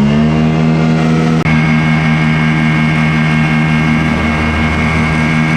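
Quicksilver ultralight's engine and propeller running at a steady high power setting, just after revving up. A thin high whistle comes in about a second and a half in.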